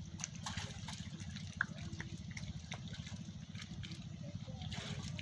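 Water splashing and dripping as hands lift fish fry out of a wet net and drop them into a basin of water, with scattered small splashes and a sharper plop about one and a half seconds in.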